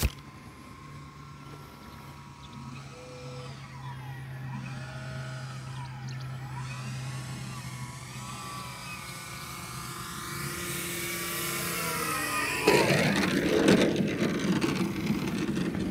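Electric motor and propeller of a Hangar 9 Piper Cub radio-control plane on its landing approach. The whine rises and falls in pitch and grows louder as the plane comes in. Near the end a sudden louder, rougher noise sets in as it touches down and rolls on the grass.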